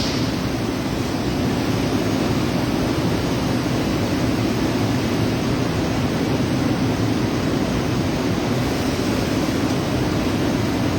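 Robotic welding arc from a cobot's torch burning with a steady, even hiss along a weld.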